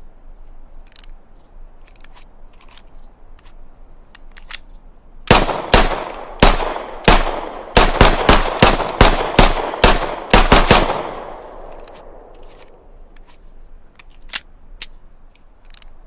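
Browning Hi-Power pistol fired in a quick string of about a dozen shots. The first few come about half a second apart, then they quicken to roughly three a second, and the last shot trails off in a fading echo.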